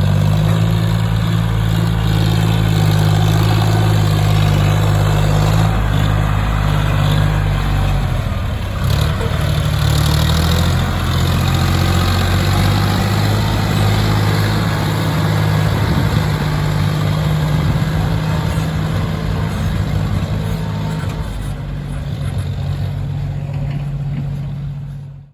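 Heavy diesel engine running steadily under work, its pitch dropping and shifting about eight seconds in and changing again near the end.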